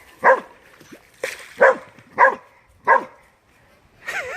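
Cattle dog barking excitedly, about five sharp barks roughly half a second to a second apart, then a wavering whine near the end.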